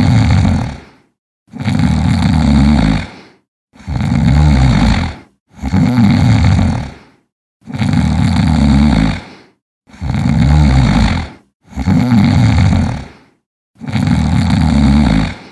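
A sleeping person snoring: eight low snores, each about a second and a half long, coming roughly every two seconds with silence between them.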